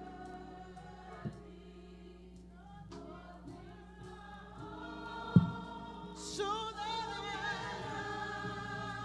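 Church choir singing a slow gospel invitation hymn in long held notes, the singing growing louder with a wavering, vibrato-laden voice about six seconds in. A single sharp thump, like a knock on the microphone, stands out just before that.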